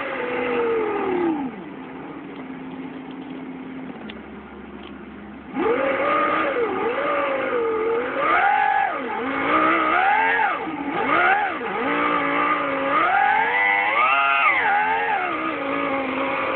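Synthetic V10 engine sound from a Sound Racer V10 simulator, played through the car's audio. It drops in pitch to a low, steady idle, then from about five and a half seconds in revs up and down over and over, highest near the end. The uploader finds its sync with the Celsior's real engine poor.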